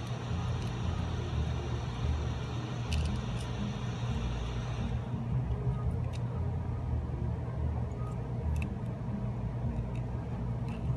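A hot-air blower running with a steady hiss that stops about five seconds in, over a constant low rumble. A few light clicks are scattered through it.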